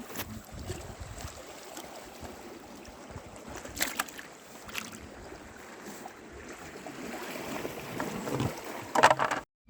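Wind on the microphone by the sea, a steady rushing noise, with a few short sharp clicks and a louder clatter near the end.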